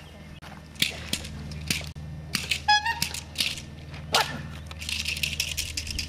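A series of sharp clicks and cracks, with a louder snap about four seconds in. Near the end they become a fast rattle of quick clicks, about ten a second, over a steady low hum.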